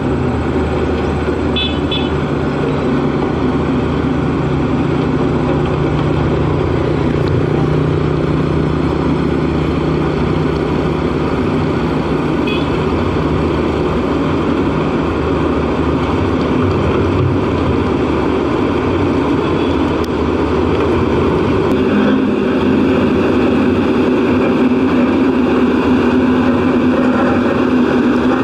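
LiuGong single-drum vibratory road roller's diesel engine running steadily as the steel drum rolls over loose crushed stone; the engine note shifts about two-thirds of the way through.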